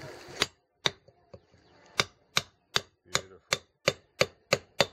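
Small hatchet chopping at a bamboo handle blank on a wooden block: about a dozen sharp chops, a few spaced out at first, then a steady beat of about three a second.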